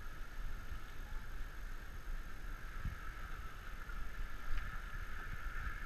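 Elephants wading through a muddy river, water sloshing with irregular low rumbles and soft thumps, over a steady high-pitched drone.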